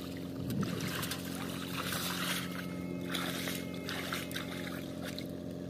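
Shallow water splashing and trickling in short bursts, three or so, as a plastic bottle fish trap is worked and shaken in it by hand, over a steady low hum.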